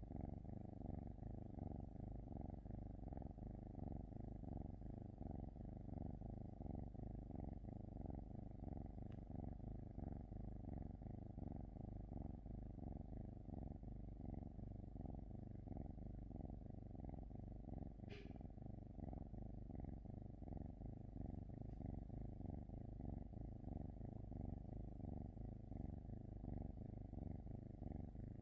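Norwegian forest cat purring steadily, a low, finely pulsing purr, with one brief click about two-thirds of the way through.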